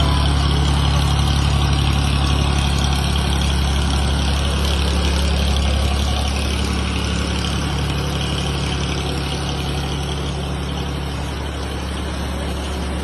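A motor vehicle's engine running steadily, a low continuous rumble that slowly gets quieter over the last few seconds.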